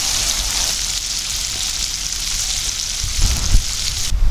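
Breaded catfish pieces deep-frying in hot oil in a cast-iron skillet: a dense, steady sizzle that cuts off suddenly about four seconds in, with a few low thumps just before.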